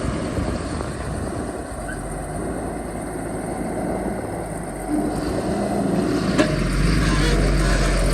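Excavator's diesel engine running steadily, getting louder about five seconds in and again a little later, with one sharp knock just before the second rise.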